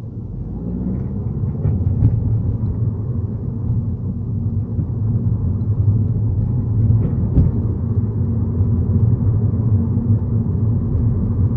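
Low, steady rumble of a car driving, heard from inside the cabin, growing louder over the first two seconds and then holding steady.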